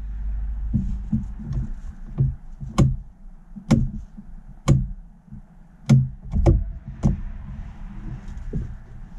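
A series of about a dozen sharp clicks and knocks at uneven intervals, the loudest around the middle.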